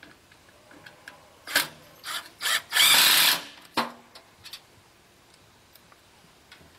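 Cordless drill running in three short bursts and then one longer run about three seconds in, followed by a sharp click.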